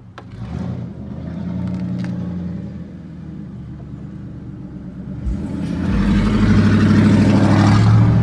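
A car's engine running close by, swelling about half a second in, easing off, then growing louder again from about six seconds, as a vehicle does when driving past.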